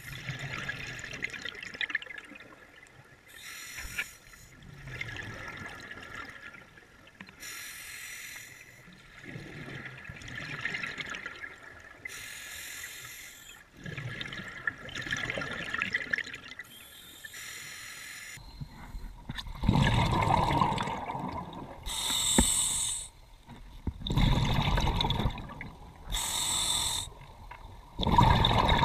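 Scuba diver breathing through a regulator underwater: a short hiss of each inhale alternating with a gush of exhaled bubbles, a breath every three to four seconds. The bubble bursts get louder from about two-thirds of the way in.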